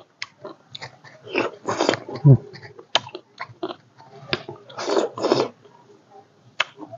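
Close-up chewing and biting of pomegranate arils and orange segments, in irregular short bursts with scattered sharp clicks.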